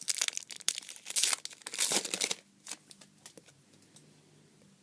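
Trading card pack wrapper crinkling and rustling while the cards are handled, for about two seconds, then only a few faint ticks.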